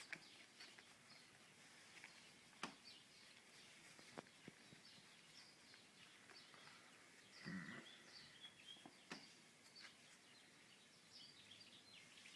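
Near silence: faint room tone with a few scattered soft clicks and a brief rustle about seven and a half seconds in.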